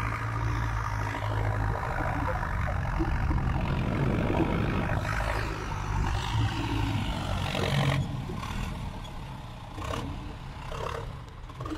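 A farm tractor's diesel engine running steadily, working soil with its front blade. It is quieter after about eight seconds.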